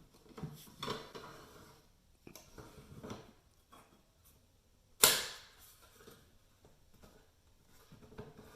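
Plastic drive cartridge of a QNAP TS-131P NAS being handled and slid into its bay, with faint scraping and rustling, then a single sharp click about five seconds in.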